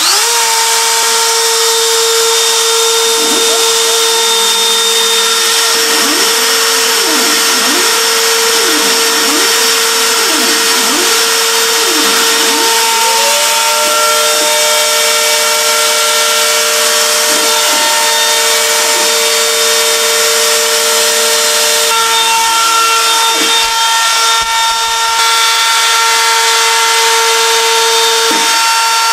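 DIY CNC router running loud with no enclosure: its router spindle gives a steady high whine, while the stepper motors' pitch sweeps up and down over and over as the axes move back and forth.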